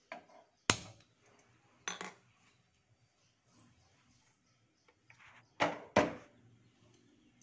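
A few sharp metal clanks and knocks that ring briefly: a gas stove's burner knob turned and lit, then a pressure cooker set down on the burner's metal pan support, two clanks close together near the end.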